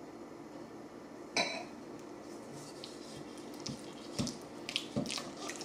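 A silicone spatula stirring mashed banana and peanut butter in a mixing bowl. A sharp knock against the bowl comes about a second in, then scattered scrapes and taps as the mixture is worked.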